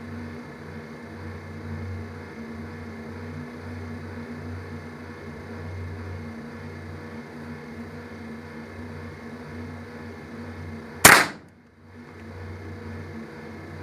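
A single shotgun shot about eleven seconds in, over a steady low hum.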